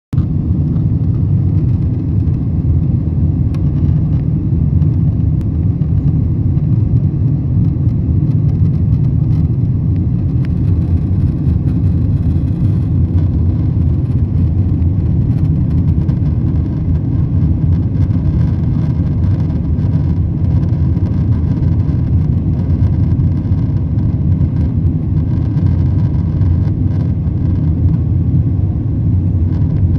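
Cabin noise inside a Boeing 747-8 airliner descending on approach: a steady, deep rumble of the General Electric GEnx turbofan engines and airflow over the fuselage, with a fainter hiss above it, unchanging throughout.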